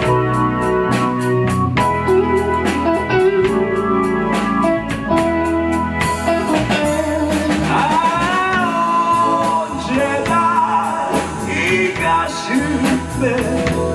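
Live rock band playing an instrumental passage of the song, with drums, bass, organ and guitar. The cymbal strokes keep a steady beat for the first half, then drop away about six seconds in as a lead melody with long, bending notes comes forward.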